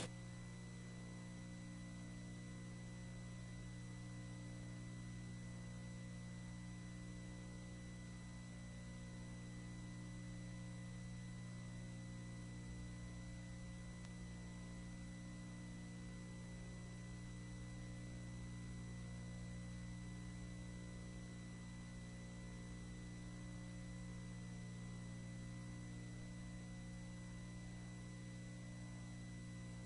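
Faint steady electrical mains hum with a thin high whine above it, unchanging throughout; no speech or room sounds.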